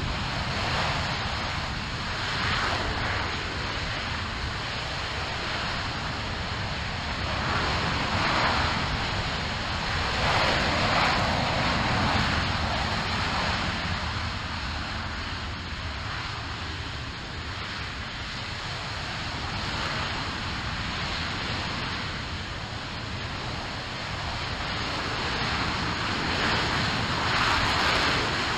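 RS-25 liquid-hydrogen/liquid-oxygen rocket engine firing steadily during a hot-fire test: a continuous, deep, noisy roar that swells and eases in loudness every few seconds.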